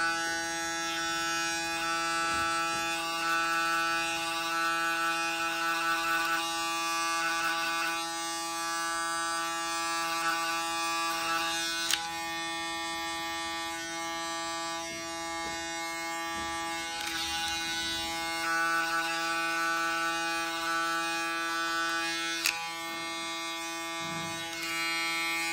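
Electric hair clipper buzzing steadily as it cuts hair, worked over a comb to blend a fade, with background music.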